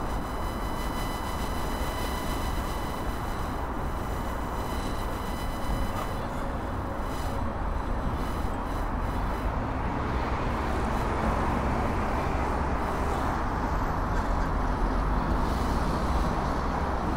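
City street traffic noise with a low rumble, picked up by a handheld Tascam DR-05X recorder. For the first several seconds a thin electronic whine of steady tones from radio interference in the recorder rides over the traffic, fading out about six seconds in.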